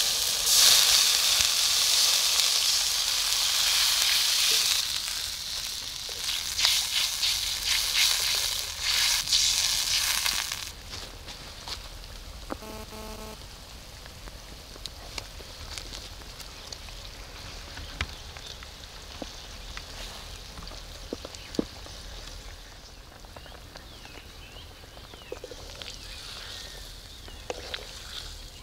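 Loud sizzling and hissing as water is poured into hot frying masala in an iron kadhai over a wood fire, lasting about ten seconds before it falls off suddenly. After that it settles into a quiet simmer, with scattered small clicks.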